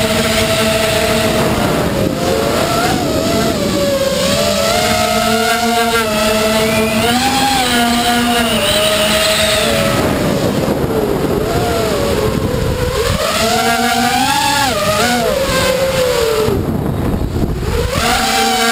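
FPV quadcopter's electric motors and propellers whining, the pitch rising and falling with the throttle, over rushing air noise, heard from the camera on board.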